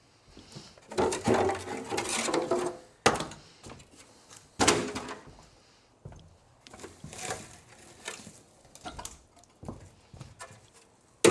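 Junk being handled and tossed aside: a stretch of clattering and rattling, then sharp knocks about three and four and a half seconds in, smaller knocks after, and a loud bang right at the end.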